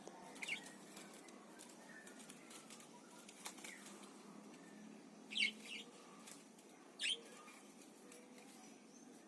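Pet parakeets giving a few short, sharp calls, the two loudest about five and seven seconds in, over faint scattered ticks.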